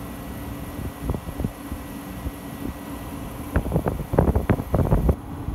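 1962 RCA Whirlpool 8500 BTU window air conditioner running on cool, a steady hum from its fan and compressor. From about three and a half to five seconds in, cold air from the vent buffets the microphone in a run of loud rumbling bumps.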